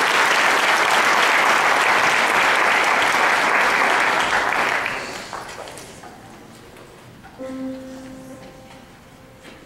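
Audience applause that fades out about five seconds in. A couple of seconds later a few piano notes sound and ring on, giving the choir its starting pitch.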